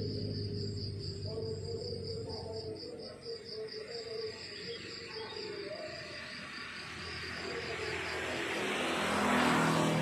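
Crickets chirping steadily in even pulses. A motor vehicle approaches and passes close near the end, the loudest sound in the clip.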